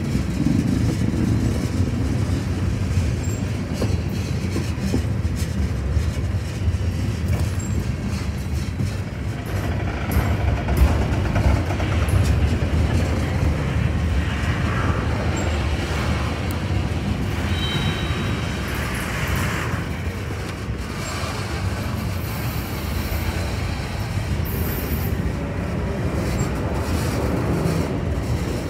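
Freight train rolling past with a steady low rumble and faint clicking of wheels over the rails, and a short high-pitched wheel squeal about two-thirds of the way through.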